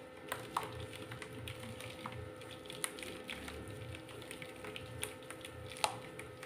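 Lumps of dry, crunchy mud being crumbled by hand over a plastic basin: a quick, uneven run of small crackles and ticks as pieces break and fall. Two sharper cracks stand out, one about half a second in and one near the end.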